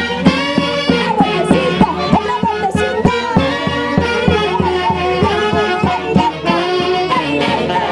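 Live band music of a Peruvian orquesta típica: violin and saxophone melody lines over a steady, evenly spaced percussion beat.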